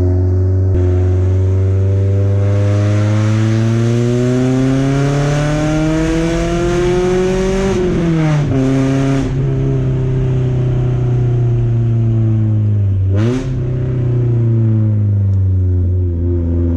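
Porsche 944's naturally aspirated inline four-cylinder running through a straight-through exhaust with no catalytic converter and no mufflers. Engine speed climbs slowly and steadily for several seconds under acceleration, then drops sharply at a gear change about eight seconds in. It then settles lower, with a second quick dip and recovery in pitch near the end.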